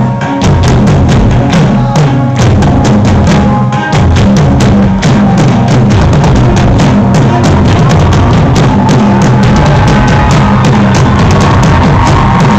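Live rock band playing loud, drum-heavy music, with a large bass drum struck on stage and a full drum kit. The drumming gets denser about four seconds in.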